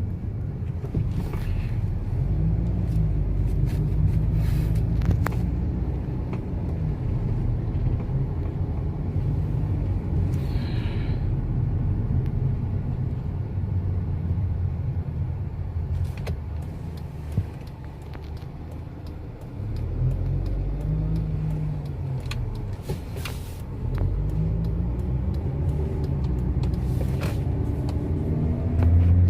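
Car driving at low speed: engine and road rumble, with the engine note rising and falling a few times as the car speeds up and slows down.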